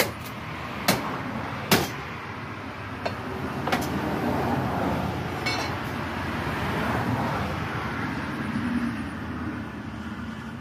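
A cleaver chopping duck on a wooden chopping block: three hard chops in the first two seconds, then two lighter knocks. After that, a vehicle passes on the road, its noise swelling and then fading.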